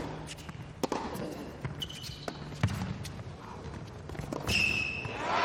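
Tennis ball thudding on an indoor hard court a few times, irregularly, with two short high shoe squeaks, and a noisy crowd hubbub rising near the end.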